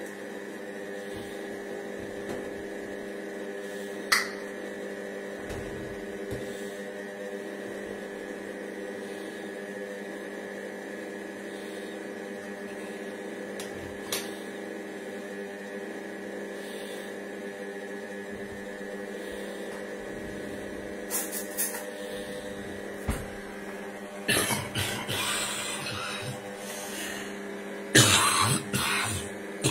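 Cecotec Mambo 8590 kitchen robot running a cooking cycle: a steady motor and fan hum with a few fixed tones. There are occasional sharp clicks, and some louder noisy bursts near the end.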